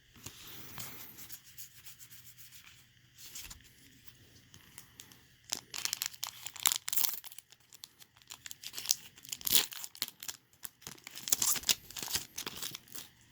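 A trading-card booster pack being torn open and its foil wrapper crinkled, with soft rustling at first and then a long run of sharp, bright crackles from about halfway in.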